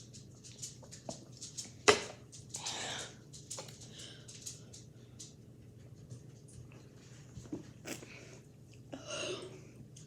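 A person chugging soda: small fast swallowing ticks, one sharp loud click about two seconds in, and hard breathy rushes shortly after and again near the end.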